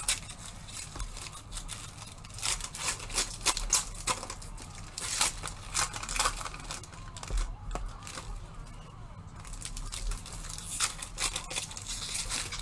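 Foil wrapper of an Upper Deck Series Two hockey card pack crinkling and tearing as it is handled and opened by hand: a run of short, sharp crackles that eases off for a couple of seconds after the middle, then picks up again.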